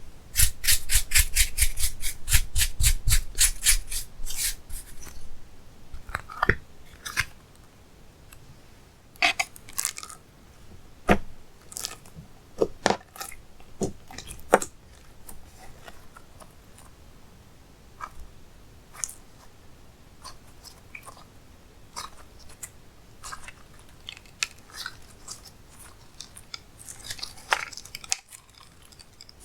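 Slime being pressed and squeezed by hand, giving a fast run of wet clicks and pops for the first four seconds or so, then scattered single clicks and short crackles as it is worked.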